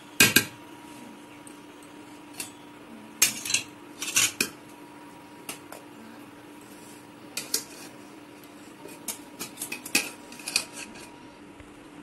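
Metal slotted spoon clinking and scraping against a metal cooking pot and a lidded steel box as the box is set down into cooked rice. The loudest clatter comes right at the start, with strong clinks about three and four seconds in and scattered lighter clicks later on.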